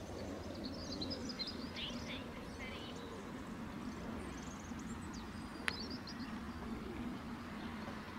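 Small birds chirping in short bursts over a steady low outdoor rumble, with one sharp click a little past halfway.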